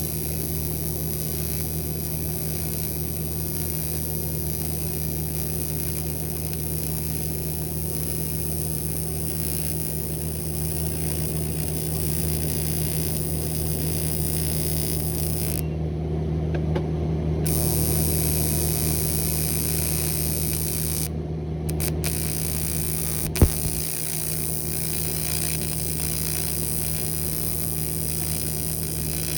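TIG welder working aluminium: a steady electrical hum and hiss, with one sharp click about three quarters of the way through.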